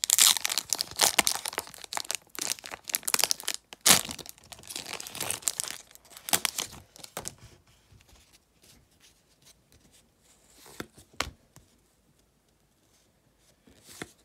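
Plastic wrapper of an O-Pee-Chee hockey card pack being torn open and crinkled, with a sharp snap about four seconds in. After about seven seconds it goes quieter: a few light clicks as the cards are slid out of the pack and handled.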